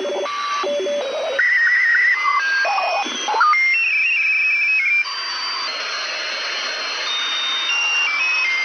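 Radio receiver being tuned across frequencies: hiss and static with whistling tones that jump from pitch to pitch and warbling bursts, dropping about five seconds in to a steadier hiss with a few held tones.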